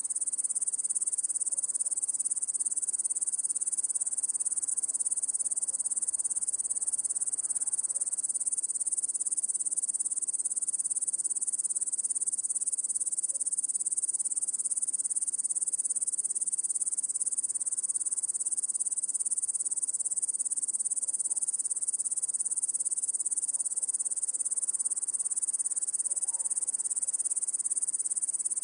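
Chorus of crickets chirping, a dense, steady high-pitched trill that never lets up.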